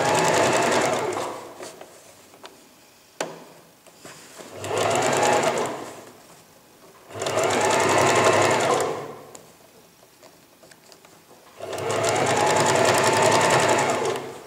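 Electric domestic sewing machine stitching binding along a zipper in four short runs of about two seconds each, stopping between them. A single sharp click comes a little after the first run stops.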